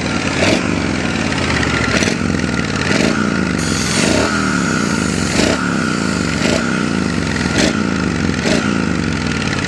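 Triumph Bonneville T100's water-cooled parallel-twin running through Scrambler 900 silencers, a steady, mild exhaust note no louder than the stock pipes. Scattered sharp knocks and clatter from mechanics at work cut in several times.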